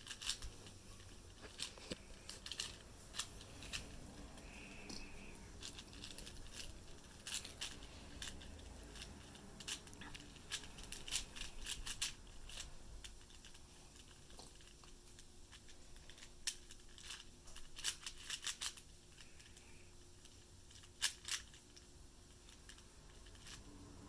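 4x4 Rubik's cube being turned quickly: its plastic layers click and clack in irregular bursts of rapid turns, with short pauses between them.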